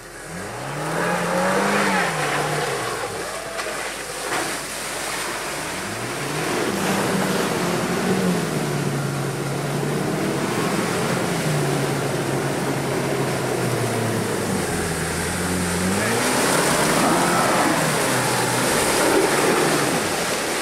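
A Land Rover Defender 90 P300's 2.0-litre turbocharged four-cylinder petrol engine revving up and down under off-road driving. Underneath it runs a steady rush of noise.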